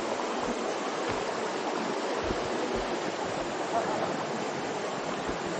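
Shallow stream rushing over rocks in a steady, even wash of water noise.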